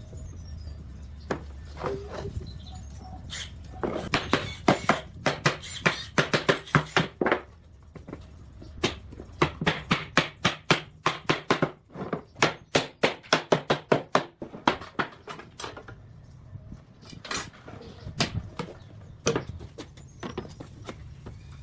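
Rapid, repeated striking on wood in the workshop, like hammer or mallet blows: a run of knocks several seconds in, then a steady run of about three blows a second, then a few single knocks near the end.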